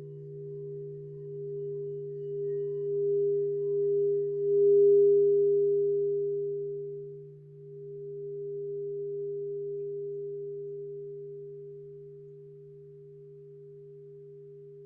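Crystal singing bowls ringing in a few steady, pure tones, one low and others higher. The higher tone swells with a slow pulsing to its loudest about five seconds in, then fades gradually while the low tone keeps sounding.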